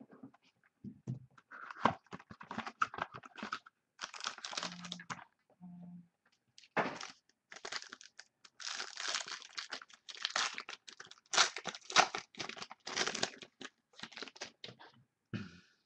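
A 2013 Inception football card pack's wrapper being torn open and crinkled by hand, in irregular bursts of crackling with short pauses between them.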